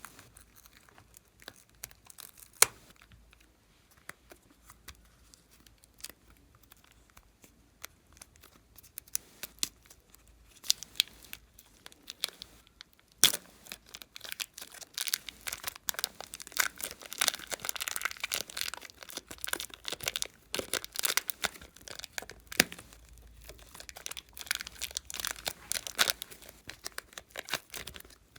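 Glossy slime being pressed, stretched and folded by hand, giving sticky crackling and popping clicks. The clicks are scattered at first and become a dense, continuous crackle from about halfway through.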